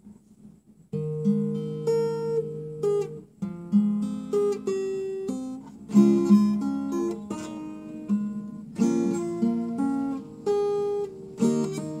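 Classical guitar played solo as a song introduction: plucked notes and chords. It starts about a second in, after a brief near-quiet moment.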